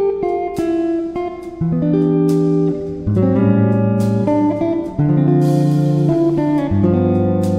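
Background music on plucked guitar, its notes and chords changing about once a second.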